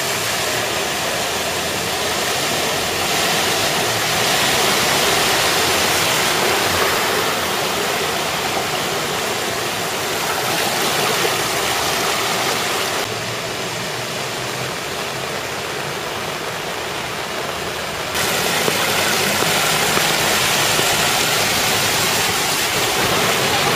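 Steady rushing and splashing of water as cars drive through a flooded street, pushing bow waves and throwing spray, with car engines running underneath. The noise drops abruptly about halfway through and jumps back up a few seconds later.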